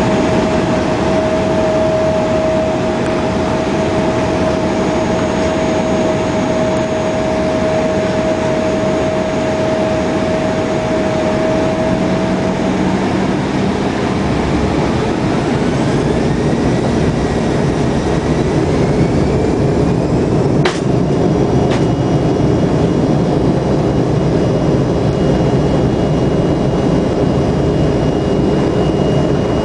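Embraer 170's General Electric CF34 turbofan engines running with a steady rumble and a steady tone, then a whine rising in pitch about halfway through as the engines spool up for takeoff; a sharp click sounds near the two-thirds mark.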